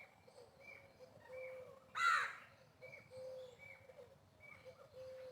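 A peacock gives one loud, harsh call about two seconds in, over a background of short, high bird calls repeating less than a second apart.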